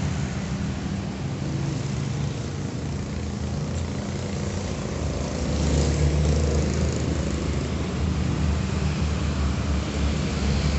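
A steady low motor hum, swelling for a couple of seconds around the middle.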